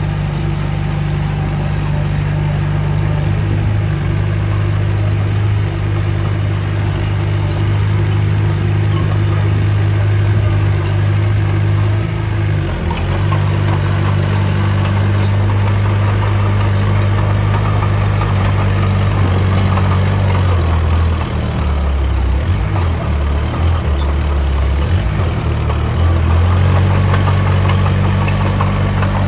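Diesel engine of heavy earthmoving machinery running steadily, its pitch shifting about halfway through and wavering under changing load in the last third.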